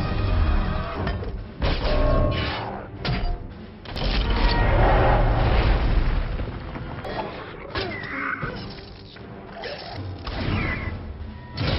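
Action-movie battle soundtrack: music mixed with heavy booms and crashing impacts, with a long, loud, low rumble starting about four seconds in.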